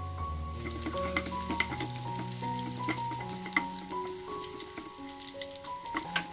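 Sliced shallots and fenugreek sizzling in hot oil in a nonstick pan, with sharp clicks and scrapes from a steel spoon stirring them. The sharpest click comes about three and a half seconds in.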